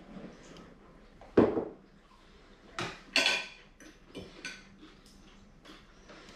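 Forks clinking and scraping on dinner plates while eating, a scatter of short clinks with a louder knock about one and a half seconds in.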